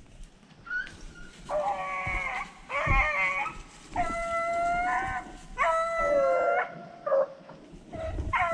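Rabbit hounds baying in a run of long drawn-out calls, about five of them, the last after a short pause near the end. This is the sound of hounds running a rabbit's scent trail.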